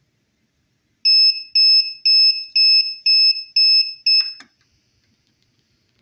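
Electronic buzzer of a homemade grill-temperature kitchen timer sounding its alarm as the countdown reaches zero: about seven high-pitched beeps, two a second, starting about a second in and stopping after about three and a half seconds, with a faint click or two as it stops.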